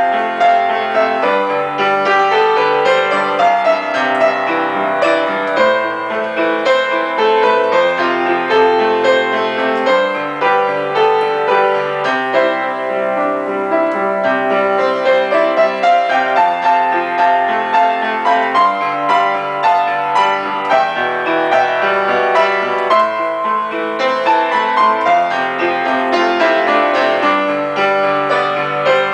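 Upright piano played continuously, with a flowing melody over low bass notes and chords and no pauses.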